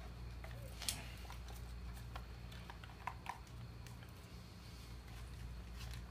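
Faint clicks and rustles of plastic parts being handled as a wire is worked free of a sprinkler head's green plastic housing, the sharpest click about a second in and two more just after three seconds, over a steady low hum.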